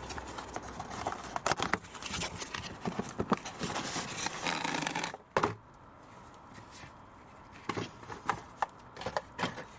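A new Mann CU4436 pollen filter and its packaging being handled: crinkling, rustling and clicking for about five seconds, then quieter with a few scattered clicks.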